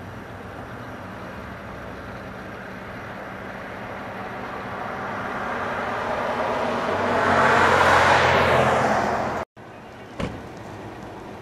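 A vehicle driving past on the street, its tyre and engine noise swelling over several seconds to a loud peak and falling slightly in pitch as it passes. It cuts off abruptly, followed by a quiet street hum and a short click.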